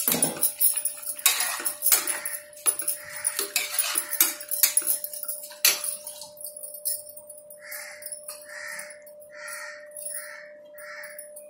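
A metal spatula stirring and scraping rice in an aluminium pressure cooker, with glass bangles jingling on the stirring wrist, for about six seconds. Then the stirring stops and a bird calls repeatedly, five short calls a little under a second apart.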